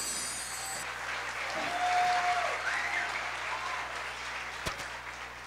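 The last notes of the dance music stop about a second in, and an audience applauds. A couple of high calls from the crowd rise over the clapping about two to three seconds in, and the applause fades toward the end.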